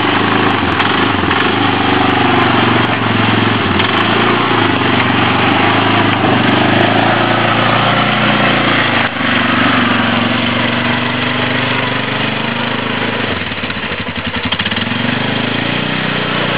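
Polaris quad (ATV) engine running as the machine crawls up a rocky trail, the revs shifting as it works over the rocks, with an uneven, pulsing stretch near the end.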